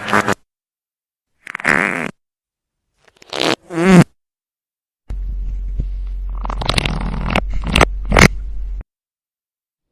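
Fart sound effects played one after another with dead silence between them. A short fart comes about a second and a half in, then two quick ones near four seconds, the second falling in pitch. Then comes a longer recording with a steady low hum under several farts.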